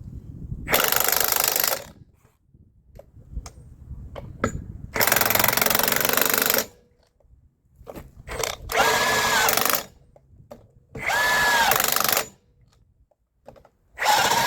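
Impact wrench running lug nuts onto a semi truck's steer wheel in five bursts of about a second each. The later bursts carry a whine that rises and falls.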